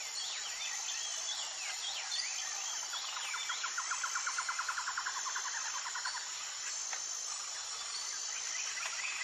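Outdoor nature ambience: insects buzzing steadily with a high thin whine that comes and goes, and short bird chirps in the first few seconds. From about three to six seconds in, a rapid trill of evenly repeated notes stands out as the loudest part.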